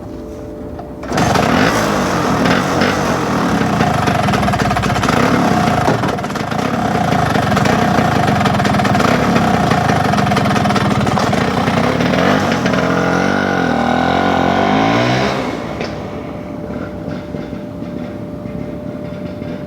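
1964 Vespa GL's rebuilt two-stroke single-cylinder engine running. About a second in it suddenly gets much louder and stays loud for some fourteen seconds, its pitch rising and falling near the end, then drops back to a quieter, steady running.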